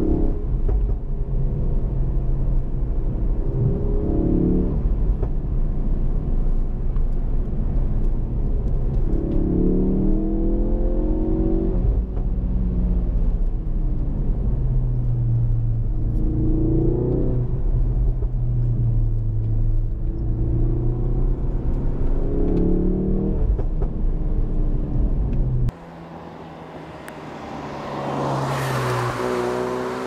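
2017 Ford Focus RS's 2.3-litre turbocharged four-cylinder, heard from inside the cabin under load over a steady low drone. Its note climbs in several rising pulls, with drops between them as it shifts. About four seconds from the end the sound switches to outside, where the car comes up, passes with a rising then fading rush, and drives off.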